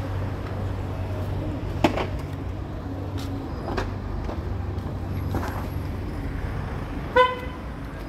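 Busy city-street traffic with a steady low engine drone. A sharp knock comes about two seconds in, and a short, loud vehicle horn toot sounds near the end.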